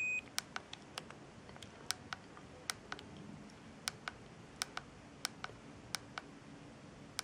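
Siemens A31 mobile phone keypad buttons clicking as the menus are scrolled, irregular presses at roughly two a second. A short high electronic beep sounds right at the start.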